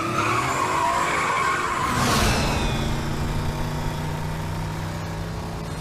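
Car tyres squealing for about two seconds, then a sudden rush of noise about two seconds in, after which a vehicle engine runs on steadily.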